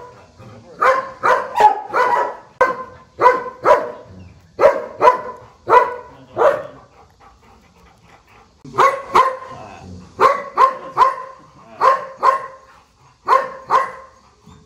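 A dog barking over and over in quick runs of sharp barks, about two a second, with a pause of about two seconds in the middle.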